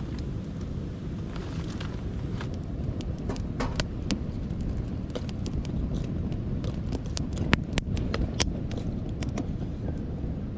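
Wood campfire of sticks and split timber crackling, with irregular sharp pops that come more often in the second half, over a steady low rumble. Now and then pieces of split wood knock as they are set against the burning kindling.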